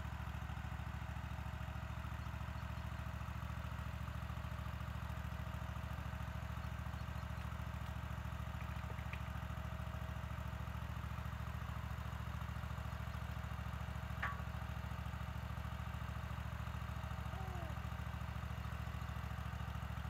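An engine idling steadily with an even, fine pulse, and one sharp click about fourteen seconds in.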